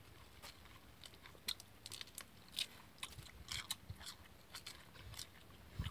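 A person chewing crunchy food, heard as faint, irregular short crunches a few times a second.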